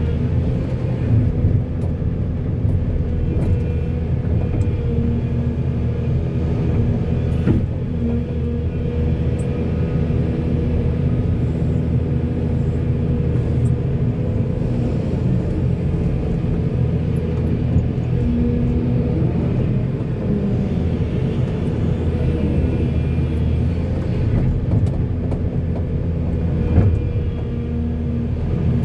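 Heavy diesel engine running steadily with a low rumble as a backhoe loads a dump truck, with a few short knocks, the loudest near the end.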